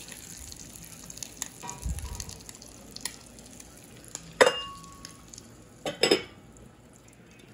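Egg frying in a glass Corning Visions skillet, a faint steady sizzle. About four and a half seconds in comes a sharp glass clink that rings briefly, and around six seconds two knocks as the glass lid is set down on the skillet.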